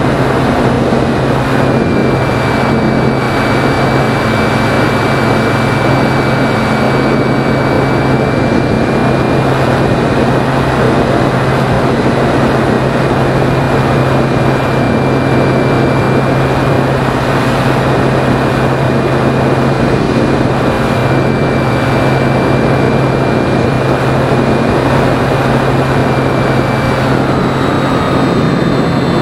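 Phoenix 2000 electric RC glider's brushless motor and propeller running, a steady high whine over loud wind rush on the onboard camera. Near the end the whine drops in pitch.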